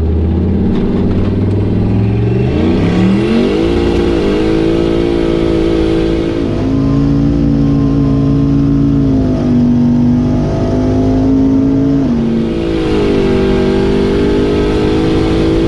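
Turbocharged 5.3-litre LS V8 in a 1993 Chevy 1500 revving up over a couple of seconds and then held at high revs. Its pitch dips and climbs again a few times.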